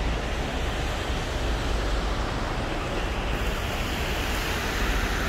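Steady outdoor rumble and hiss: wind buffeting the microphone over distant road traffic, with the hiss growing brighter about three seconds in.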